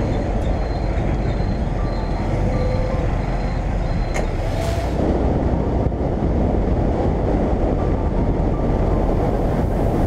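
Motorcycle running along a highway: steady engine and wind rush on the bike's camera, with a faint series of short beeps repeating during the first few seconds.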